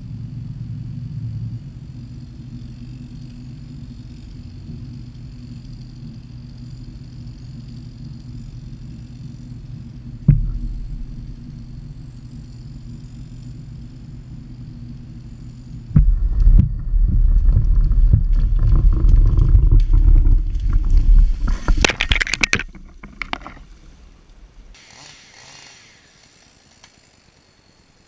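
Winch-assisted tree felling: a steady low hum while the winch rope is under tension, a single thump about ten seconds in, then about six seconds of loud rumbling with sharp cracks near the end as the tree goes over, dying away.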